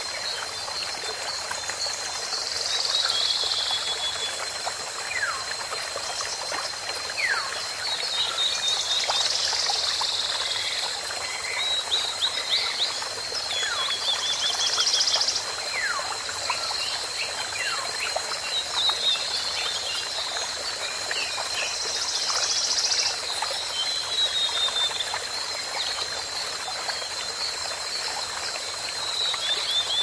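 Black-naped oriole nestlings begging with quick runs of short, high chirps every few seconds, with scattered brief downward-sliding calls. Behind them is a steady high-pitched whine and an even hiss.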